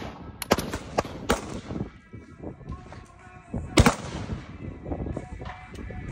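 Gunshots at a shooting range: a quick string of about four shots in the first second and a half, then a single louder shot about four seconds in.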